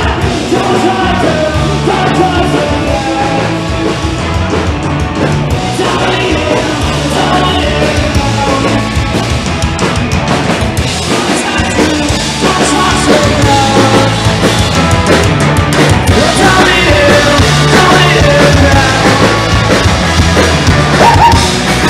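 Live rock band playing loud, with electric guitar and drums and a singer; the music gets louder about halfway through.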